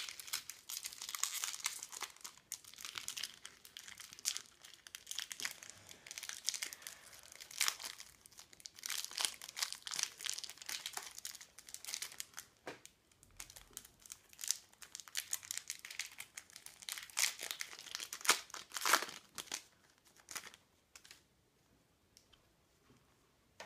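Foil wrapper of a Match Attax trading-card packet being torn open and crumpled by hand: irregular crinkling and rustling that dies down near the end.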